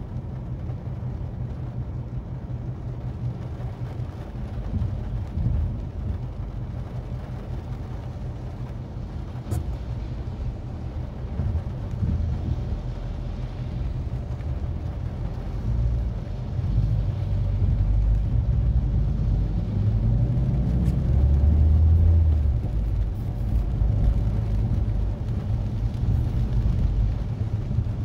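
Mazda 3 driving, heard from inside the cabin: a steady low rumble of engine and road noise that grows louder a little past halfway.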